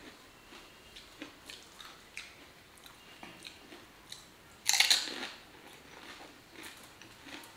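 A whole pani puri bitten and chewed: one loud, crisp crunch of the fried puri shell a little past halfway, with quieter chewing and small mouth clicks around it.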